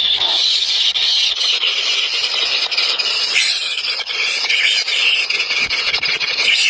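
Three nestling birds begging for food with continuous, overlapping high-pitched calls, a steady shrill chorus: the begging of very hungry chicks.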